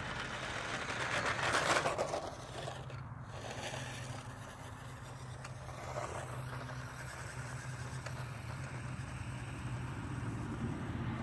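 New Bright RC Baja toy truck with its original motor, driving over dirt and grass. The motor and tyres make a rough rushing noise that is loudest about a second and a half in and then grows fainter as the truck drives off.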